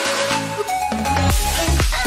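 Background electronic music; a deep bass beat comes in about halfway through.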